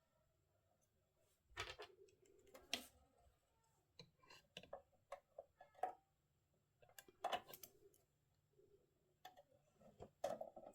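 Scattered clicks and light knocks at irregular intervals, with quiet stretches between: small parts being handled on a workbench.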